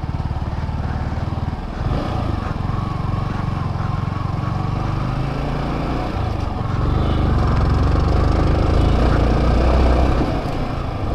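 Yamaha R15 V3's single-cylinder motorcycle engine running steadily at low speed. It grows louder for a few seconds after the middle, then eases back.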